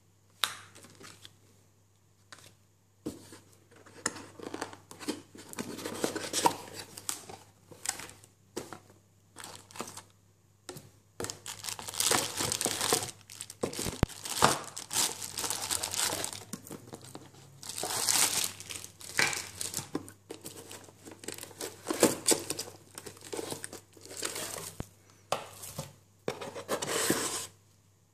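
Plastic packaging crinkling and rustling in irregular bursts with short pauses as a wireless router and its bagged accessories are handled and lifted out of a cardboard box.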